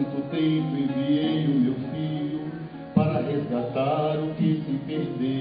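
A man singing a hymn in Portuguese into a microphone over instrumental accompaniment, his voice holding and bending long notes. A new sung phrase comes in loudly about three seconds in.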